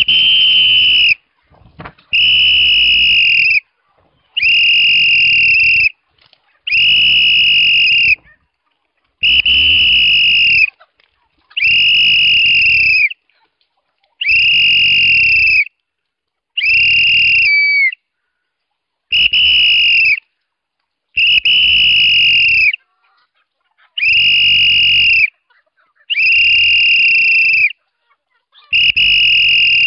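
A man whistling to call free-range chickens in to feed: long, steady, high-pitched whistles of about a second and a half each, repeated roughly every two seconds.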